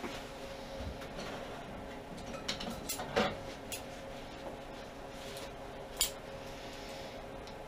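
Loose metal parts clinking and clattering as they are handled and rummaged through, with a cluster of sharp clinks about three seconds in and one more about six seconds in.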